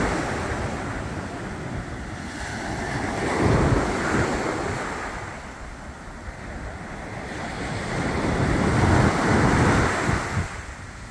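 Ocean surf breaking and washing up the shore, swelling and fading in slow surges about every five seconds, with wind rumbling on the microphone.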